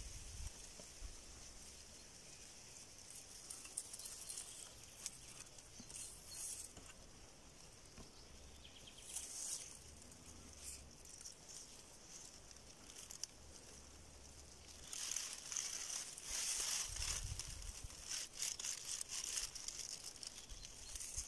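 Faint, intermittent rustling and crackling, a few scattered bursts at first and busier over the last six seconds or so.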